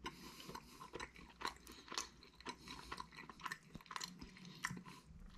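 A person chewing a mouthful of spinach and feta stone-baked pizza: faint, irregular crunchy clicks of chewing.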